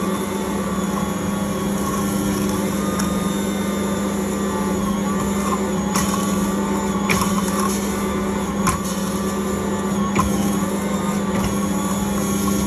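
Ankarsrum Original Assistant stand mixer running steadily, its motor turning the stainless steel bowl while the dough roller kneads pizza dough: a constant hum, with a few sharp knocks now and then.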